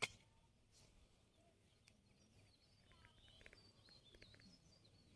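Near silence with faint, high bird chirps and twitters in the second half, after a single soft click at the very start.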